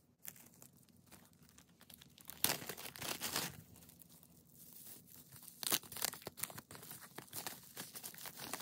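Bubble-wrap pouch crinkling and crackling as hands handle and work it open, in uneven bursts of rustling that are loudest about two and a half seconds in and again near six seconds.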